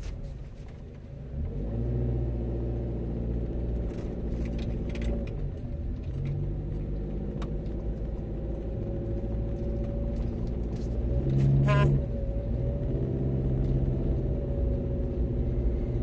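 Car engine and tyre rumble heard from inside the cabin as the car drives slowly, the engine note picking up about a second and a half in. A few light clicks, and a short louder sound about three-quarters of the way through.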